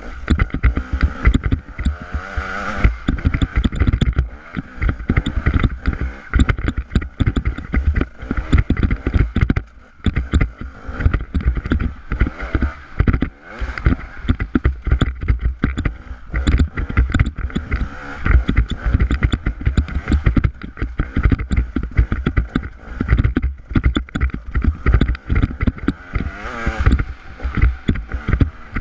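Off-road motorcycle engine running and revving up and down while riding over a rocky trail, with constant rattling and knocks from the rough ground and wind rumble on the microphone.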